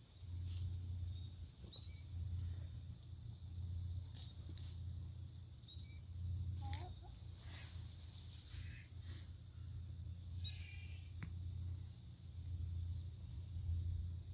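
Insects shrilling steadily in a high band, typical of crickets, with a few faint rustles and knocks about halfway through.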